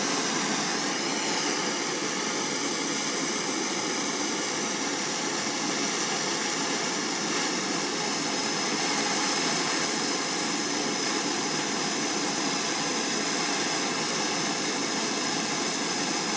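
Handheld gas torch burning with a steady hiss, its flame heating a tool-steel reamer to a blue colour (about 500 degrees) before it is coated with anti-scaling compound.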